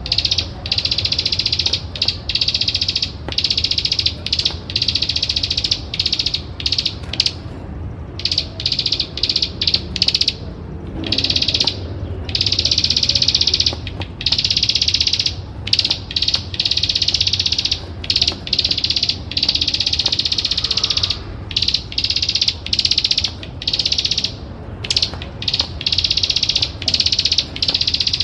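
Plain prinia singing its rapid, high-pitched clicking trill in runs of one to a few seconds with short pauses between.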